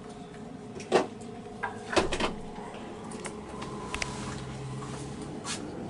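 A few sharp knocks and clicks of a wooden cabin door or cupboard being handled, the loudest about two seconds in and one more near the end.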